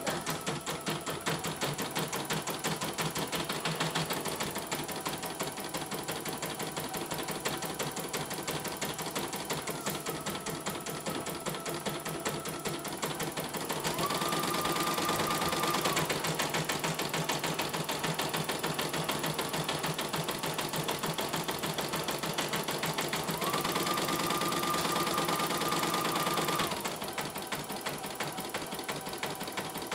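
CNY E900 computerized embroidery machine stitching at a fast, steady needle beat, running smoothly after a mainboard replacement. In the middle it gets louder for several seconds, with a brief high whine twice.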